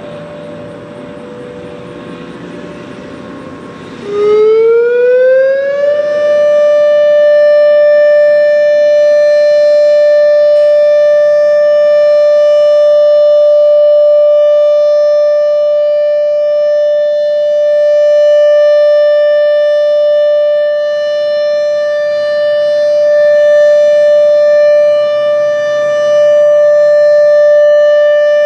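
Federal Signal Modulator 8032B electronic tornado siren sounding its steady alert: about four seconds in it glides up in pitch over a couple of seconds, then holds one loud, steady tone near 590 Hz, a customized tone lower than the usual 850 Hz that makes it sound like a 10-port siren. Before it starts, distant sirens are faintly heard.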